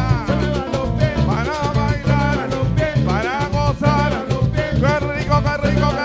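Live Afro-Peruvian band music: a man sings lead over acoustic guitar, electric bass and a steady rhythm struck on a cajita, the Peruvian wooden box drum with a clapping lid.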